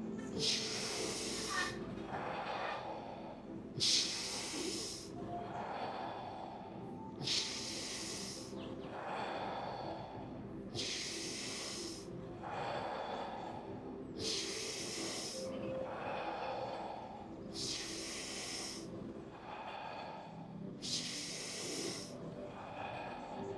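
A person breathing deeply and rhythmically in the 'fire' breathing exercise: each audible in-breath and out-breath follows the last without pause, about one full breath every three and a half seconds.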